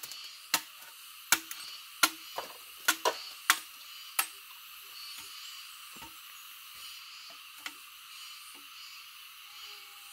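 Machete chopping at a bamboo pole: about eight sharp knocks in the first four seconds, some coming in quick pairs, then only a few faint knocks. A steady high hiss runs underneath.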